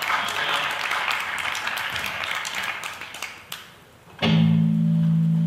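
Audience applause dies away. About four seconds in, the band's electric guitar and bass strike a loud chord and hold it steady.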